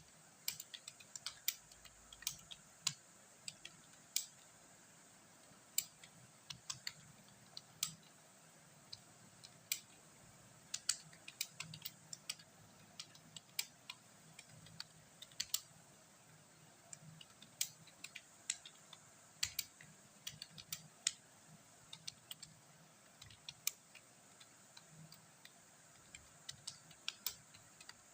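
Typing on a computer keyboard: irregular key clicks, a few a second, with short pauses between runs.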